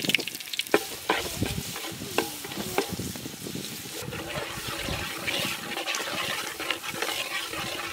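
Ginger paste frying with mustard seeds, curry leaves and green chillies in hot coconut oil, sizzling steadily in an aluminium pot as a steel ladle stirs it. In the first three seconds the ladle knocks and scrapes against the pot several times.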